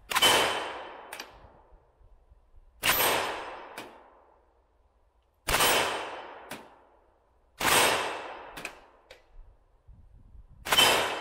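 AK-pattern rifle firing 7.62x39 mm rounds: five single semi-automatic shots, about two to three seconds apart. Each crack fades away in a long echoing tail, followed about a second later by a fainter sharp crack.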